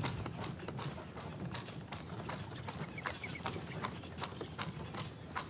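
Horse's hooves clip-clopping as it pulls an open carriage: an uneven run of sharp knocks, a few a second, over a low steady rumble.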